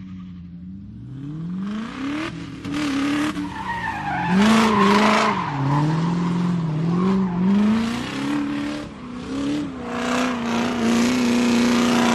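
Drifting race car: the engine revs up and down again and again while the tyres squeal and skid, the squeal growing louder about a third of the way in.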